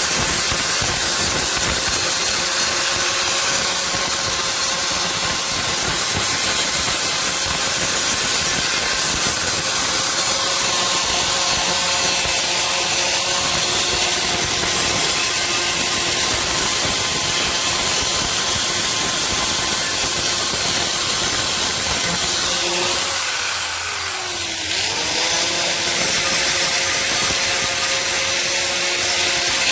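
Handheld electric power tool running steadily with a high whine, grinding down the welded seams on a plastic car bumper. About three quarters of the way through, its pitch sinks as it winds down, then it quickly spins back up to speed.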